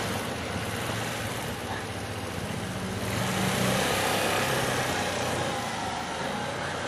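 Vehicles going over a railway level crossing: a steady rush of wheel and road noise, with a low engine hum in the middle.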